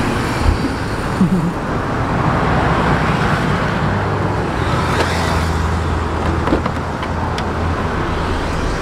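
Steady traffic and car noise with a low engine hum that grows stronger about halfway through. A few light knocks come from shopping being loaded into a car boot.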